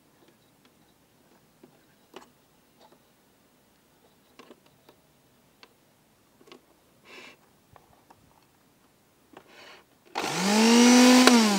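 Light clicks and plastic handling sounds from the blender's top drive coupling, then the MX-T3PN blender's motor, its broken coil winding repaired, is switched on with a push button about ten seconds in. It spins up quickly to a high whine, runs briefly, and with a click near the end starts to wind down.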